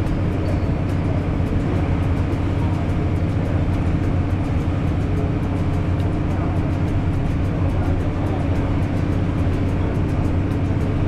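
Small passenger ferry's engine running at steady cruising speed, a constant low drone, with water rushing past the hull.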